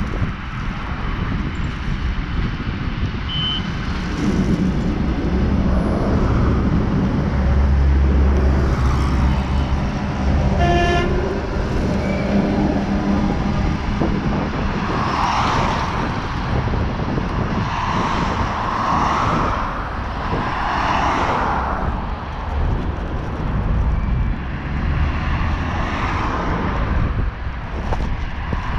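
ED9M electric suburban train approaching and passing, a low rumble that builds as it nears, with one short horn blast about eleven seconds in. After the horn comes a run of rising and falling swells of wheel and traffic noise as the cars go by.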